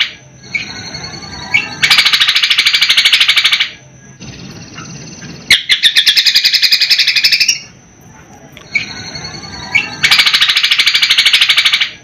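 A caged cucak kombo singing its learned 'gereja helikopter' song. It gives a fast, even rattling trill of about a dozen notes a second, lasting about two seconds, and repeats it about 2 s, 5.5 s and 10 s in. Softer twittering fills the gaps between the trills.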